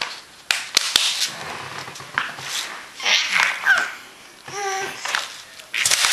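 A baby babbling, with a short pitched vocal sound about four and a half seconds in. A few sharp clicks come in the first second, and there is rustling around three seconds in.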